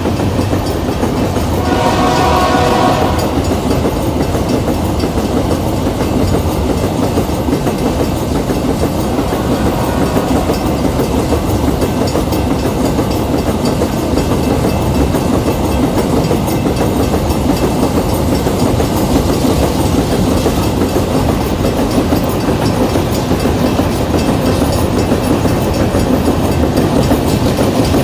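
Empty iron-ore train's wagons running past on the rails, a steady rumble with wheels clicking over the rail joints. A short horn blast about two seconds in.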